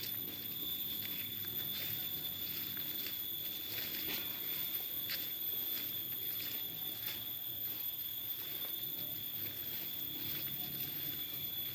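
A steady, high-pitched drone of forest insects, holding two unchanging pitches, with irregular light rustling and crackling steps on the forest floor.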